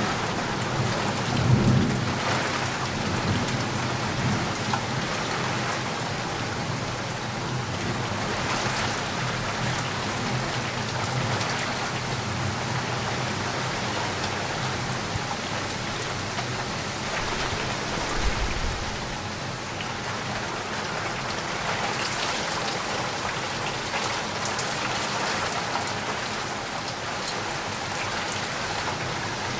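Steady rain falling, with a low roll of thunder in the first few seconds.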